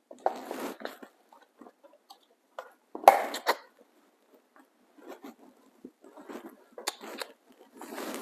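Irregular rustling and handling noises, with a few sharp clicks, as the leather strap of a head tefillin is unwound from its box and lifted. The loudest rustle comes about three seconds in.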